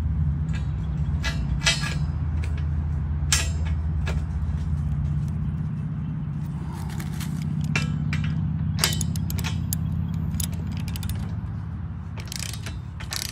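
A few separate metal clinks as a bolt is fitted into a steel gate hinge, then a socket ratchet wrench starts clicking in quick strokes near the end as it turns the bolt in, over a steady low hum.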